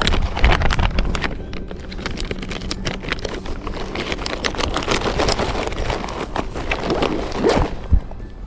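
Wind buffeting the microphone, with irregular clicks and knocks throughout.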